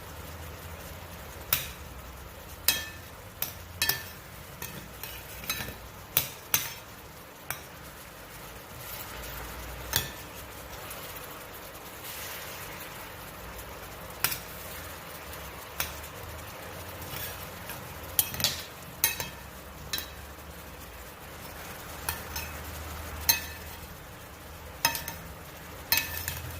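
Chicken pieces sizzling in teriyaki sauce in a stainless steel skillet as the sauce heats up to bubble, with a utensil clinking and knocking against the pan every second or two as the chicken is stirred and turned.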